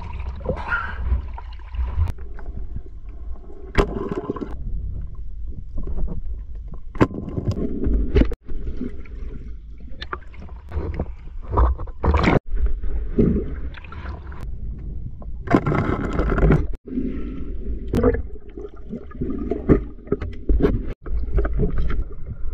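River water splashing and sloshing against a microphone that dips in and out of the water, with a constant low rumble and irregular knocks and scrapes. The sound breaks off suddenly for a moment several times.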